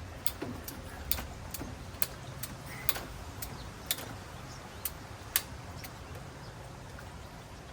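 Hand-squeezed 2-inch PVC pipe cutter clicking as its handle is worked through the pipe, a dozen sharp clicks at an uneven pace, with the cut finishing just after.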